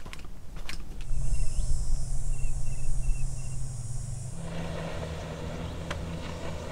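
Footsteps on a dirt trail. About a second in, a steady high insect buzz sets in, with a few short, repeated bird chirps and a strong low rumble. It cuts off suddenly after about three seconds and gives way to a fuller outdoor ambience.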